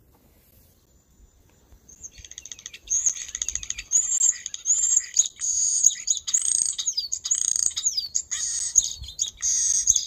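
European starling song: a jittery, droid-like run of rapid clicks, rattles and whistled slides rising and falling in pitch. It starts about two seconds in and goes on without a break.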